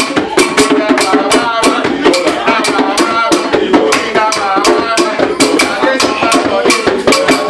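Live hand drumming on djembe drums with a wooden stick clicking on wood, keeping a fast, steady beat of about four strikes a second. Hand clapping and voices singing along.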